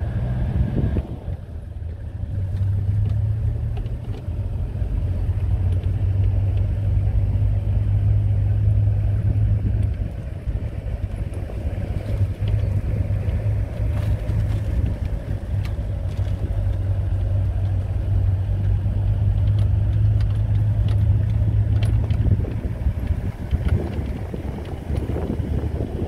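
A vehicle driving along, its engine a steady low drone, with wind noise on the microphone. The drone drops away a few seconds before the end.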